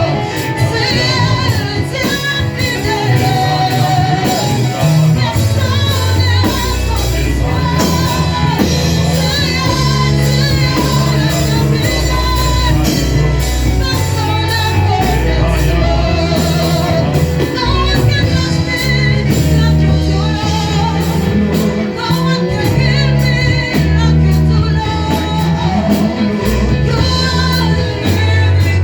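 Worship music: voices singing over a band with a steady beat and a bass line.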